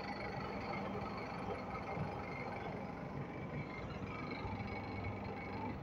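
Electric wood-turning lathe running steadily with an even hum while turning a wooden bed leg.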